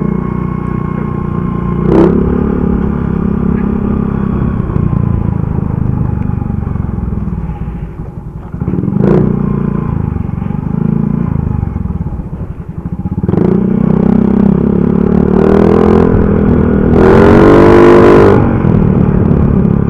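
Motorcycle with an open 'chicken pipe' aftermarket exhaust, ridden with the engine note rising and falling as the throttle opens and closes. There are a couple of sharp cracks from the exhaust, and the engine builds to its loudest near the end.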